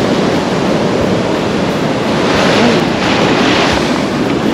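Ocean surf washing on the beach, with wind buffeting the microphone; the wash swells louder about halfway through.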